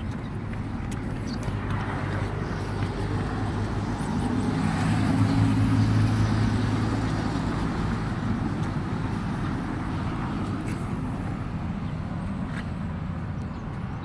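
A car drives past on the road, its engine and tyre noise swelling to a peak about five or six seconds in and then fading as it moves away, over a steady low rumble of road noise.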